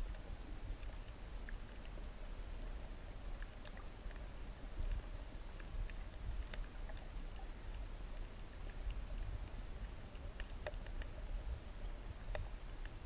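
Underwater reef ambience picked up by a camera in its underwater housing: a steady low rumble of moving water, with scattered sharp clicks throughout.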